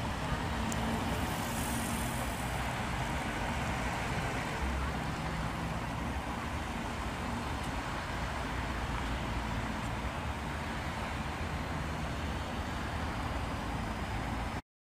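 Steady road-traffic noise, the rumble of cars and trucks passing on a main road. It cuts off suddenly near the end.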